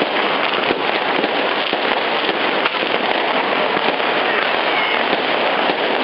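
Aerial fireworks crackling and popping in a dense, continuous stream of sharp cracks, with no pause.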